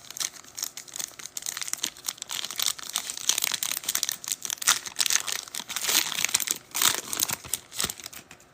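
Trading card pack wrappers being torn open and crinkled by hand, a dense run of crackling and rustling with sharp clicks that stops just before the end.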